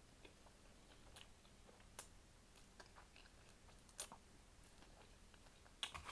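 Faint close-miked chewing of food, with scattered small wet mouth clicks; a few sharper clicks come about two, four and six seconds in.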